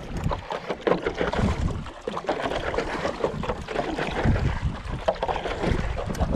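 Stand-up paddleboard paddle strokes: the blade dipping and splashing in river water, with irregular sloshes against the board. Gusty headwind rumbles on the microphone now and then.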